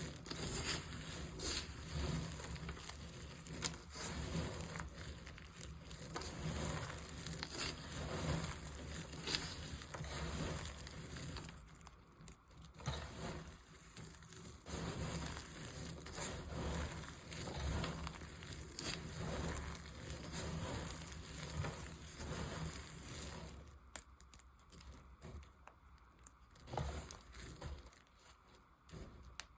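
Blade cutting and carving dry bar soap, a dense run of crackling, crumbling scrapes that thins to quieter, sparser strokes near the end.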